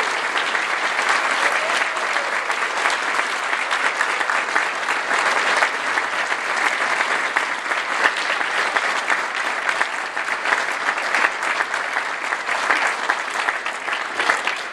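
Audience applauding, many hands clapping together in a dense, sustained patter that eases a little near the end.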